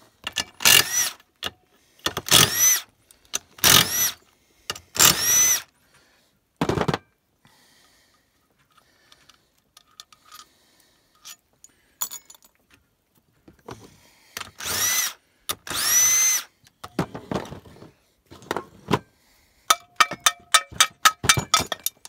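Cordless power driver unscrewing the cylinder head bolts of a small overhead-valve generator engine, in a series of short runs, each rising in pitch as the motor spins up. Near the end come quick light clinks of loose metal parts.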